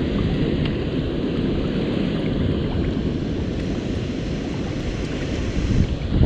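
Wind buffeting the microphone: a steady low rumble with a brief louder gust near the end.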